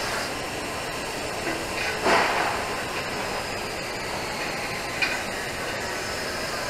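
TIG welding arc on a 12-inch pipe joint, a steady hiss with a brief louder surge about two seconds in and a short click near five seconds.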